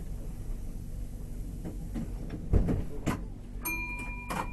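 Low, steady rumble of a Tyne and Wear Metro train running between stations, heard from inside the carriage. It is broken by several knocks and thuds, the loudest a low thump about halfway through. Near the end a steady high whine sets in, followed by one sharp knock.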